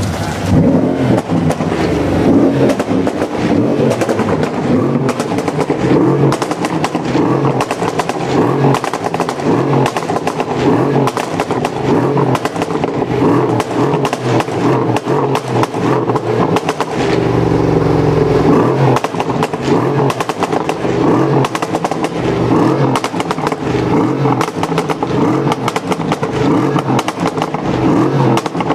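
Mercedes-AMG CLS 63 S twin-turbo V8, tuned to 700 hp and fitted with an AK47 aftermarket exhaust, running and revving. The exhaust crackles and pops rapidly throughout, over the engine note.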